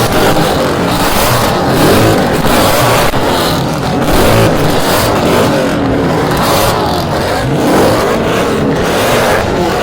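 Mercedes-AMG M156 6.2-litre V8 engines being revved hard, the pitch climbing and dropping again and again.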